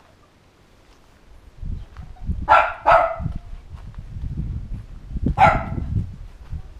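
An animal gives three short, loud calls: two in quick succession, then a third about two and a half seconds later, over a low rumble.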